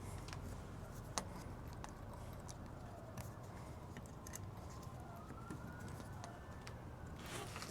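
Faint scattered clicks and taps of a hand tool on metal as the set screw on the door-lock handle is tightened, over a steady low hum. A faint wavering tone rises and falls in the background in the second half.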